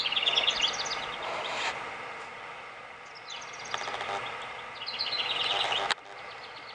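A songbird singing outdoors: two phrases of rapid repeated high notes, the second ending abruptly.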